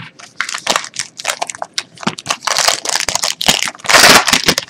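Plastic foil wrapper of a football card pack crinkling as it is handled and torn open, in a run of short crackly rustles that is loudest about four seconds in.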